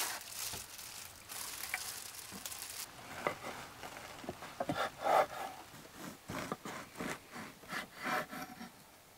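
A plastic bag rustling as a round loaf is drawn out of it, then a knife sawing through the loaf's crust on a wooden cutting board in a run of short back-and-forth strokes from about three seconds in.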